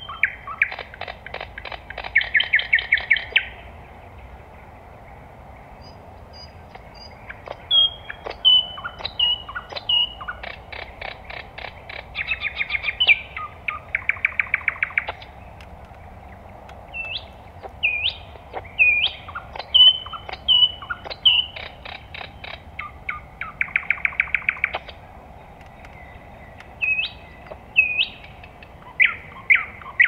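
Nightingale singing in separate phrases several seconds long, with pauses of a few seconds between them. The phrases mix clear whistled notes with fast, rapidly repeated clicking and rattling series.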